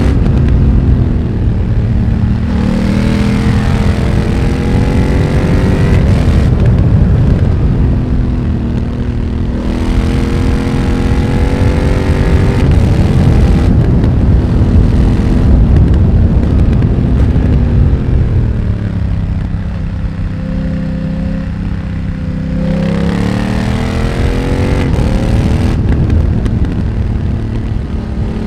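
BMW F900R's parallel-twin engine, breathing through a Mivv X1-M exhaust, pulling hard with its note climbing and dropping back several times as it runs up through the gears. About two-thirds of the way through it slows on a closed throttle, with the pitch falling and holding low, then climbs again. Wind rush runs underneath.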